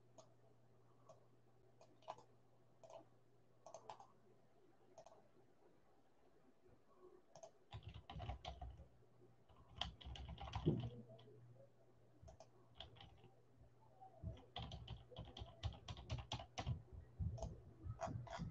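Faint typing on a computer keyboard: scattered key clicks at first, then a fast run of keystrokes over the last few seconds. A few dull knocks come in the middle.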